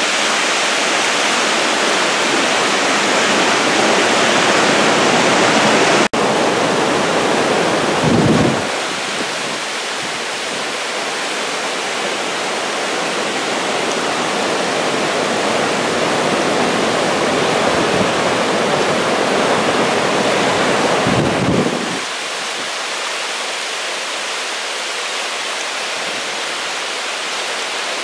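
A flooded woodland stream, swollen by thaw and heavy rain, rushing through rapids as a steady loud roar of whitewater. A brief low rumble comes twice, about eight and twenty-one seconds in.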